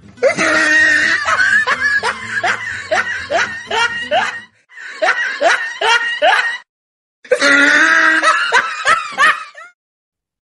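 A person laughing in quick repeated pulses, in three bouts with short breaks between.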